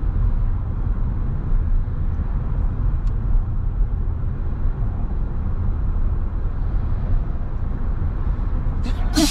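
Steady low rumble of a car driving: engine and road noise. Just before the end comes a brief, sharp hiss.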